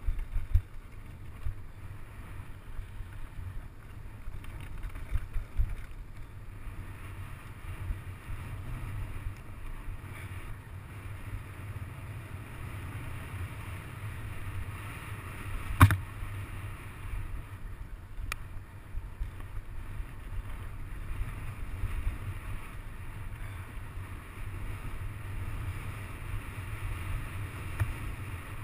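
Wind buffeting the on-board camera microphone over the rumble and rattle of a mountain bike riding fast down a rough dirt trail, with uneven low thumps from the terrain. There is a single sharp knock a little over halfway through, the loudest sound, with a fainter click a couple of seconds later.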